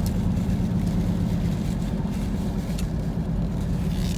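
Steady road and engine rumble inside the cabin of a moving car, with a few faint ticks.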